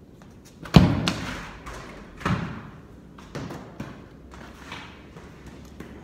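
Football kicked hard off a holder: a sharp thud that rings on in a large, echoing barn. A second heavy thud comes about a second and a half later, then a few lighter knocks.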